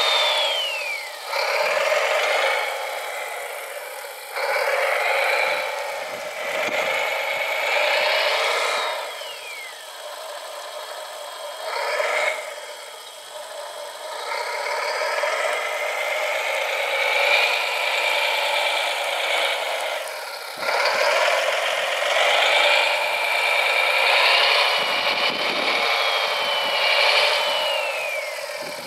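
Whirring electric motors and gearing of radio-controlled construction models, shifting in pitch and loudness several times, with a few falling whines as a motor slows.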